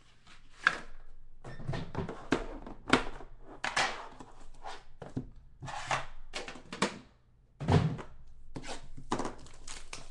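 A cardboard box of trading cards being handled and opened on a table: irregular scrapes, taps and knocks as it is turned, slid open and set down, with one heavier thunk near the end.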